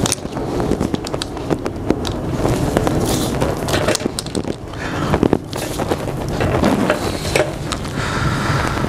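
Handling noise of gloved hands fitting the fuel hose and clamp on a motorcycle fuel pump, with scattered small clicks and rustling.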